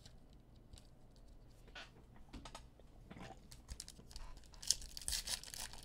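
Faint soft clicks of trading cards being flipped and slid against one another in the hands, then the crinkle of a foil card pack being torn open over the last second or so.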